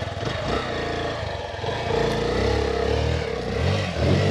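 Hero Xpulse 200 single-cylinder four-stroke engine revving up and down unevenly on a steep dirt climb. The rider says it is losing power, without knowing why.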